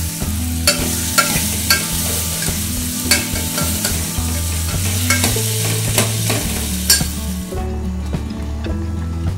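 Chopped vegetables sizzling as they fry in oil in an aluminium pressure cooker while a steel ladle stirs them, with sharp clicks of the ladle striking and scraping the pot. Near the end the sizzle drops away to the quieter sound of the gravy boiling.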